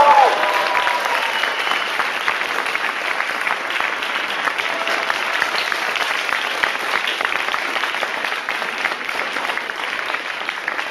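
Audience and performers applauding: dense, steady clapping.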